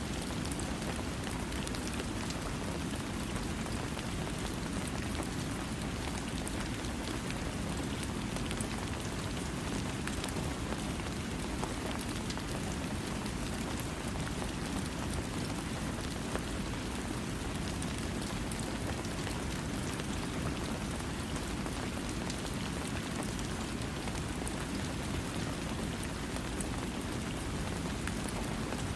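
Steady rain falling and pattering on surfaces, an even wash of drops with no thunder.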